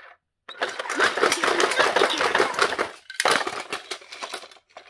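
Chuck the Dump Truck toy playing a rattling engine sound effect through its small speaker. It runs for about two and a half seconds, then breaks into a few shorter bursts.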